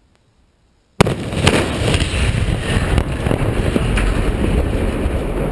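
Explosive demolition charges detonating on the legs of a steel lattice water tower: a sudden loud blast about a second in, then further sharp cracks over a continuing rumble as the legs are cut for a controlled felling.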